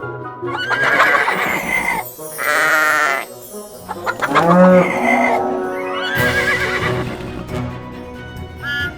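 Farm animal calls, several in a row with bending pitch, laid over light background music.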